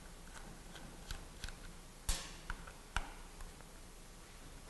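Torx screwdriver backing screws out of a DeWalt DW411 palm sander's housing: about seven irregular small clicks and ticks, the loudest a sharp click about two seconds in.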